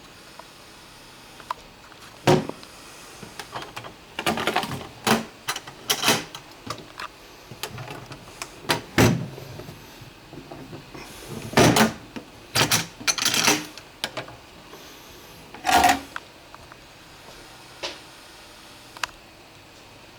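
A toolbox being handled: a dozen or so irregular knocks, clicks and clattering rattles, the busiest and loudest stretch in the middle.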